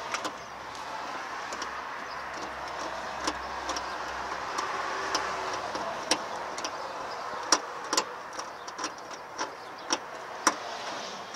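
A passing car's engine and tyre noise swells and fades away about two-thirds of the way through. Over it come several sharp plastic clicks and knocks as a wiring-harness connector is worked onto the truck's engine computer.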